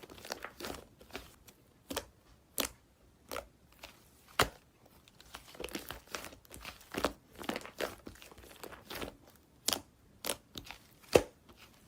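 Slime being squished and pressed by hand, giving irregular sharp pops and clicks, a few a second, with louder pops about four seconds in and near the end.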